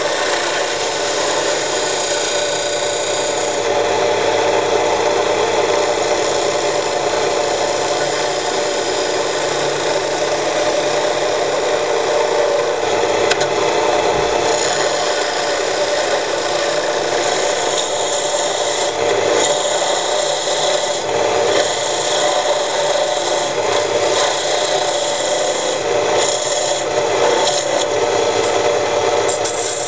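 Homemade electric wood lathe running while a narrow chisel cuts grooves into the spinning wooden blank: a steady scraping of the tool on the wood over the motor's hum.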